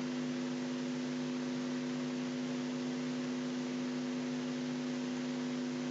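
A steady background hum made of several constant low tones, over a faint even hiss.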